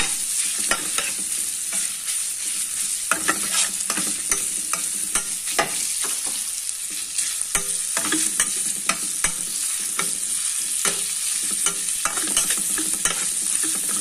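Chopped bacon frying in oil in a pan, sizzling steadily as it is crisped, while a spatula stirs and scrapes it around the pan with irregular clicks and scrapes.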